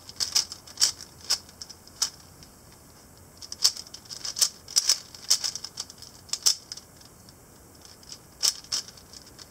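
Cyclone Boys G4 stickerless 4x4 speed cube being turned fast by hand, its plastic layers clacking in quick flurries of sharp clicks, with a short pause about seven seconds in.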